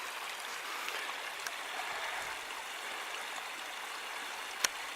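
Steady rushing of a forest stream running, with one sharp click near the end.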